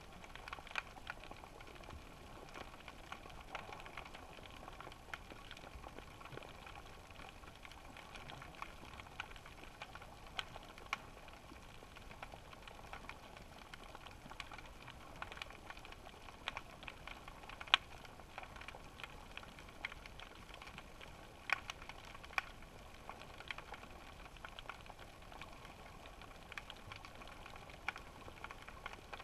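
Underwater ambient sound picked up through a GoPro's waterproof housing on the seabed: a steady faint hiss with scattered sharp clicks and crackles, one louder click a little before the 18-second mark.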